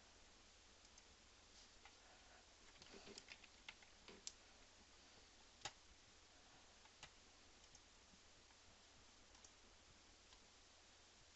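Faint, scattered clicks from working a computer, over near-silent room tone; a small cluster of clicks comes in the first half and the sharpest single click a little past halfway.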